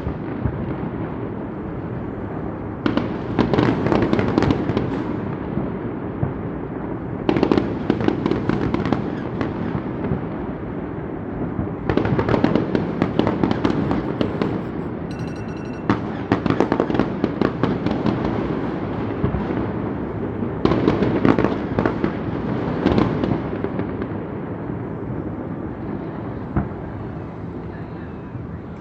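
Fireworks display going off: waves of dense crackling bursts about every four to five seconds over a continuous rumble of explosions.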